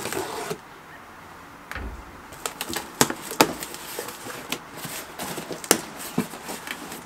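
A utility knife slicing through packing tape on a cardboard box, then the box being handled and its flaps pulled open: a run of sharp cardboard clicks, crackles and rustles.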